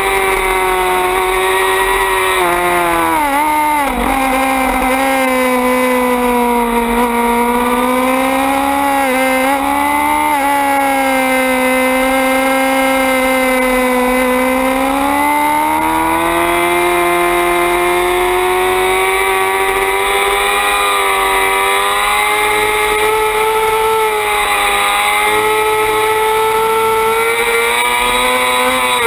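Suzuki GSX-R600 race bike's inline-four engine at racing revs, heard from on board. Its pitch falls in a few quick steps about three to four seconds in, stays low for about ten seconds, then climbs from about fourteen seconds in and holds high.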